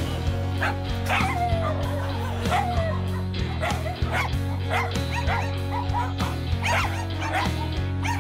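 Several caged dogs yipping and whining in short repeated cries as they are hand-fed, over background music with long held notes.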